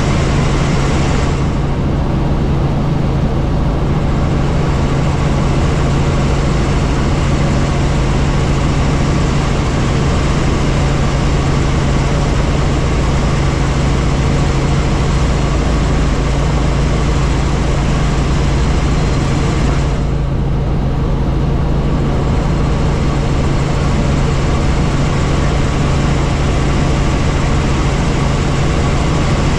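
Helicopter in flight: a steady, loud drone of turbine engine and rotor with a constant low hum and a hiss over it. The hiss thins briefly twice, about a second and a half in and about twenty seconds in.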